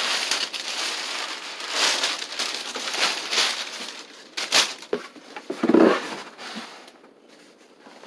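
Crumpled brown packing paper rustling and crinkling as it is pulled out of a cardboard box, followed by a few sharp clicks and a dull thump of cardboard about halfway through. The rustling dies down near the end.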